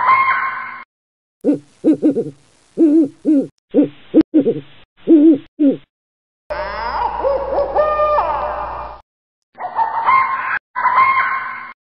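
Owl hooting: short, low hoots in quick groups, joined to other, higher owl calls and a longer wavering call in the middle by abrupt cuts.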